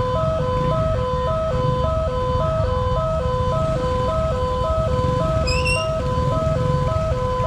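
Railway level-crossing warning siren sounding a fast two-tone pattern, a lower and a higher note alternating about twice a second, over a steady low rumble. A brief rising chirp cuts in about three-quarters of the way through.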